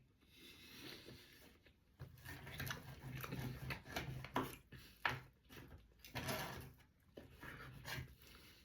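Someone eating off a plate: irregular clicks and scrapes of cutlery on the plate, with chewing.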